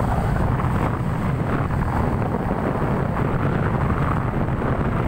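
Steady wind rumble buffeting the microphone of a moving vehicle, with the vehicle's running noise underneath.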